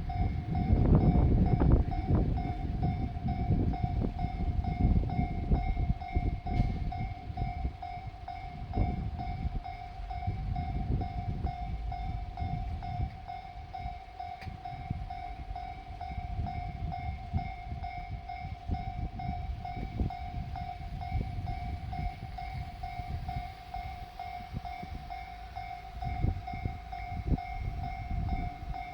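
Japanese level crossing alarm ringing continuously while a JR Shikoku diesel railcar passes over the crossing, a low rumble with repeated wheel clacks, loudest in the first few seconds.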